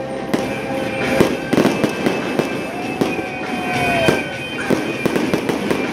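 Fireworks going off in a rapid run of bangs and crackles, with music playing underneath.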